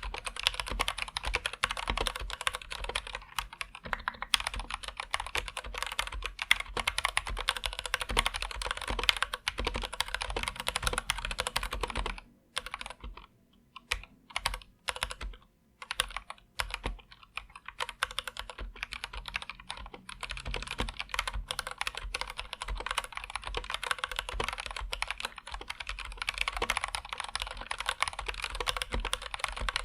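Fast, continuous typing on an Anne Pro 2 mechanical keyboard with Gateron Red linear switches, a dense stream of key clacks. The typing breaks off for a few seconds in the middle with only a handful of single keystrokes, then picks up again.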